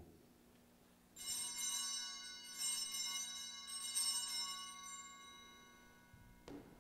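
Altar bells (a cluster of small bells) shaken three times about a second apart, each ring fading out, marking the elevation of the consecrated host at Mass. A soft knock near the end.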